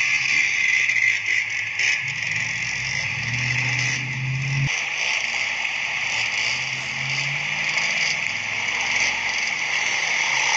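Dirt bike engine running while the motorcycle wades through a rocky stream, over a steady rush of water. The engine note rises from about two seconds in and cuts off suddenly just before halfway, then comes back fainter.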